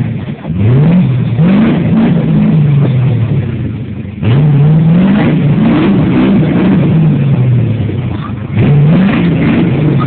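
A Jeep Wrangler YJ's 5.7 Vortec V8 revved hard again and again, its pitch climbing sharply and then sagging, with a sudden surge about four seconds in. The high revs come from the wheels spinning on damp rock with open differentials.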